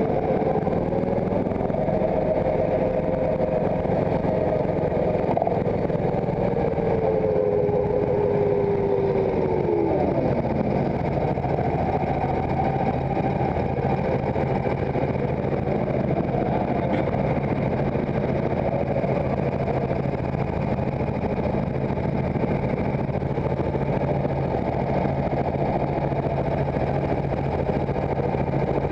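Go-kart engine heard from the driver's seat, running at speed, then dropping steeply in pitch about ten seconds in as the kart slows, and settling into a steady low idle.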